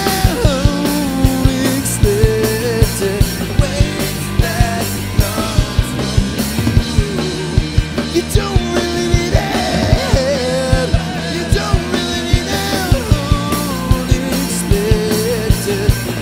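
Rock band playing live: electric guitar, electric bass and drum kit, with a man singing lead.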